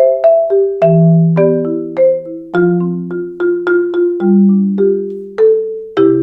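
Marimba played with Marimba One Wave Wrap mallets: a melodic passage of struck notes every third to half second, with long ringing low notes sounding beneath the higher line.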